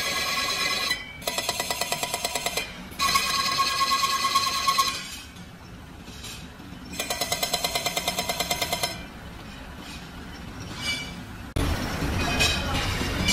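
Steel rickshaw wheel rim spinning on a belt-driven lathe with a bearing roller pressed against it: a loud metallic ringing screech that pulses rapidly, about nine times a second, in bursts of one to two seconds. Between the bursts the lathe runs more quietly.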